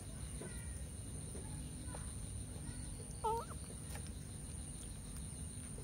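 A single short, clear animal call with a bending pitch about three seconds in, over a steady low background rumble and a steady high-pitched whine.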